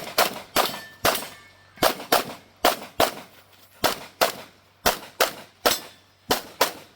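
Grayguns-tuned Sig Sauer P320 pistol fired rapidly, about fifteen shots in quick pairs roughly a third of a second apart with short pauses between pairs, each shot ringing out briefly.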